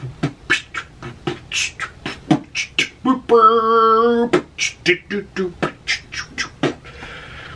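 A man's voice imitating the music of an old 1960s-style workout tape: quick rhythmic "boop" mouth sounds, about four a second, broken about three seconds in by one note sung and held for about a second, then the boops resume and stop shortly before the end.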